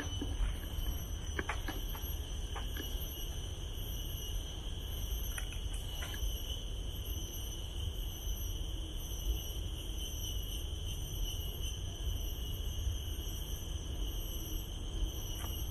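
Insects shrilling in a steady, unbroken high-pitched drone of several layered tones, over a steady low rumble, with a few faint clicks in the first few seconds.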